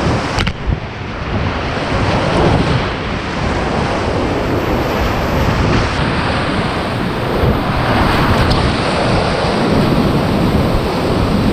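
Whitewater rapids rushing loudly around a kayak, close up, with spray and splashes hitting the microphone and adding a buffeting wind-like noise.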